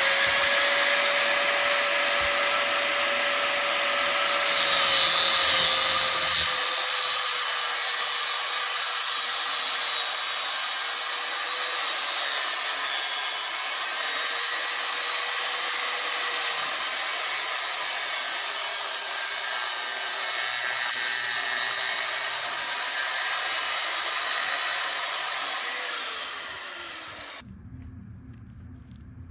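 DeWALT angle grinder running steadily under load, its disc grinding through a metal watch bracelet with a high hiss over the motor's whine. Near the end the grinder is switched off and its whine falls away as it spins down.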